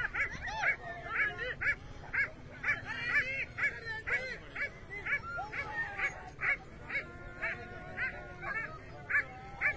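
Several hunting dogs yelping and baying excitedly in a chase, short high cries overlapping each other at about two or three a second.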